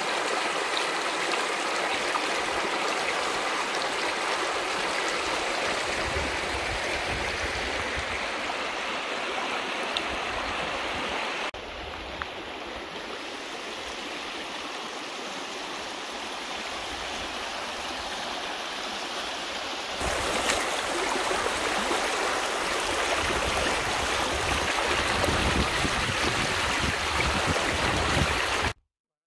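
Muddy flash-flood water rushing over stones in a wadi: a steady rushing noise. It drops somewhat about 11 seconds in, comes back louder about two-thirds of the way through, and cuts off abruptly at the very end.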